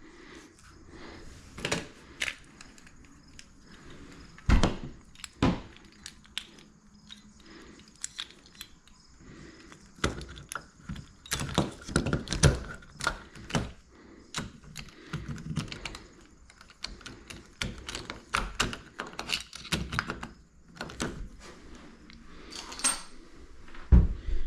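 Irregular knocks, clicks and thunks of hard objects being handled and set down, with a few heavier thumps.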